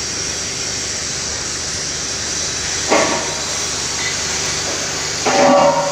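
Steady hissing machine noise with two short louder knocks, one about three seconds in and a longer one near the end.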